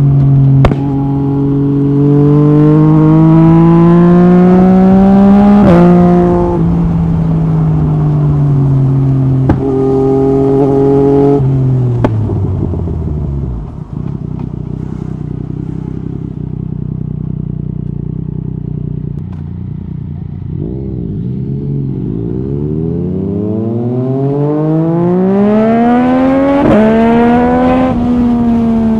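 Yamaha MT-09 SP's inline three-cylinder engine through an Akrapovic carbon exhaust with the dB killer removed, accelerating hard. Revs climb for about six seconds to a quick clutchless upshift, then hold. The throttle closes and the revs fall to a low steady run, a couple of short blips follow, and the engine pulls again, with another quick upshift near the end.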